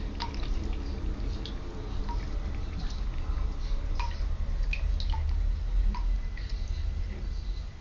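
Water drops plinking into a bathtub's standing water, a single drop about every second, over a low steady rumble.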